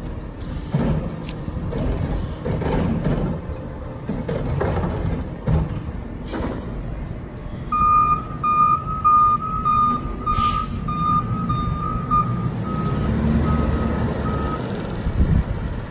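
Automated side-loader garbage truck's diesel engine running as it empties a cart and moves off. About eight seconds in, its reverse alarm starts beeping, about two beeps a second, fading over some seven seconds, with a short burst of hiss partway through.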